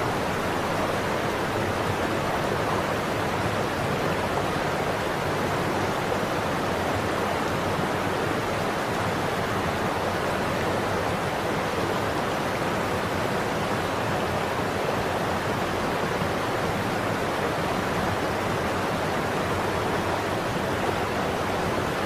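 Waterfall cascading over rock ledges: a steady, even rush of falling water.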